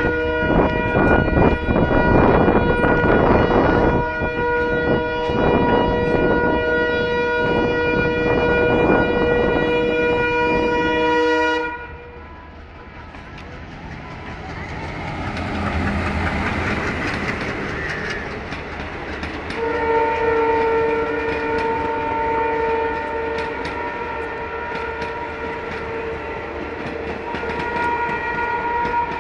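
Two Indian Railways passenger trains passing each other at speed. A train horn is held on several tones for about twelve seconds over the clickety-clack of coach wheels, then cuts off suddenly. A rising rush follows as the Poorva Express's locomotive and coaches come past close by, and about twenty seconds in a horn sounds again over steady wheel clatter.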